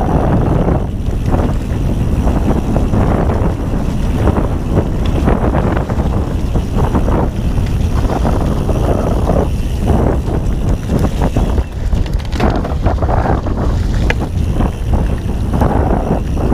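Wind buffeting the microphone with the tyre rumble and rattling of a Ghost Riot mountain bike riding fast over a rough dirt trail, dotted with frequent irregular knocks.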